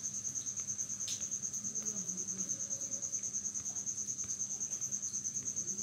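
A cricket chirping in the background: a steady, high-pitched trill of rapid, even pulses.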